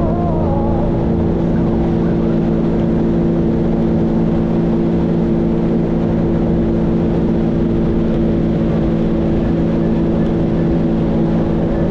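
Sea-Doo GTX 170 personal watercraft's Rotax 1630 ACE three-cylinder engine running at a steady cruising speed: a constant, even-pitched drone over a steady rush of noise.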